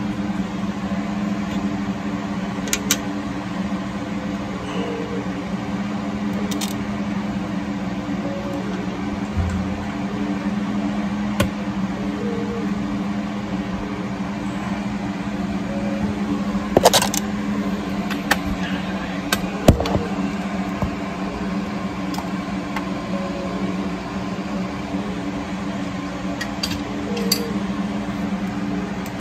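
A steady low hum with a few sharp metallic clicks and taps as a wheel speed sensor is pushed and fastened into the differential housing at the axle stub.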